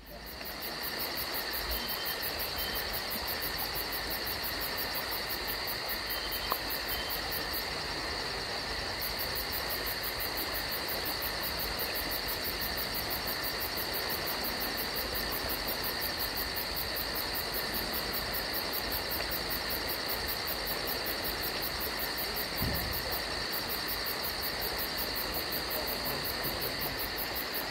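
Steady chorus of calling insects: a continuous high trill layered with a very fast, very high pulsing.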